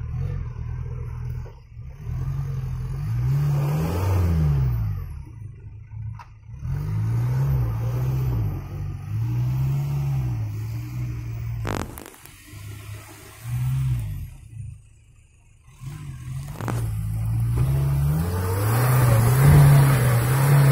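Off-road 4x4's engine revving in repeated surges, pitch rising and falling, as it struggles to climb a ledge while hung up on it. The revs die away almost to nothing about fifteen seconds in, then build hard again near the end.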